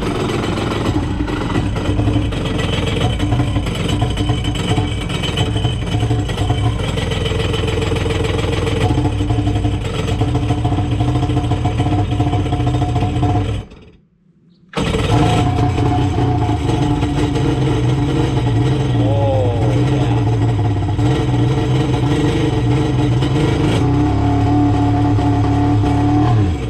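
Kawasaki 1100 STX jet ski's two-stroke engine running just after being primed and started, idling unevenly with a few throttle blips that rise in pitch. The sound drops out for about a second near the middle, then the engine runs on.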